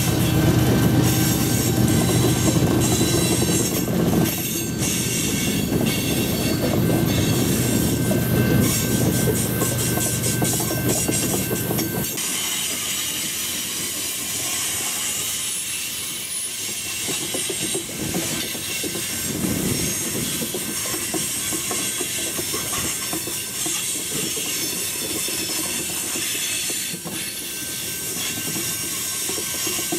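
Loaded coal train cars rolling past: steel wheels clattering and squealing on the rail with a steady hiss. For the first twelve seconds a diesel locomotive's low engine hum runs under it, then stops abruptly.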